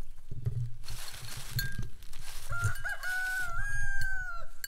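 A rooster crows once, about two and a half seconds in: a few short rising notes, then a long held note that drops away at the end.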